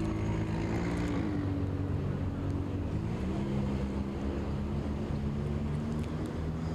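Motor vehicle engine running over a low street-traffic rumble, its pitch dropping a little about a second in and rising again around three seconds in.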